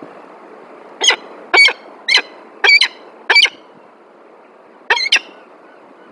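Peregrine falcon calling: a run of five harsh calls, about two a second, then a quick pair near the end.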